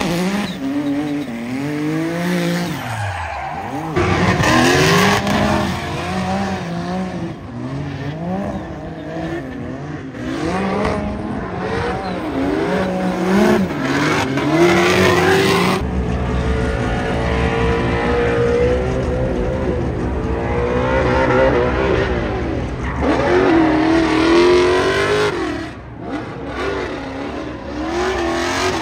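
Drift car engine revving hard, its pitch climbing and falling again and again as the driver works the throttle, while the rear tyres squeal and spin through long sideways slides.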